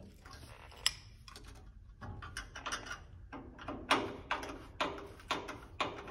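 Screwdriver working the screws that hold the headlight and its mounting on a 1985 Chevrolet S-10: irregular small clicks and short rattles of metal and plastic. One sharp click comes under a second in, and the clicking grows busier about two seconds in.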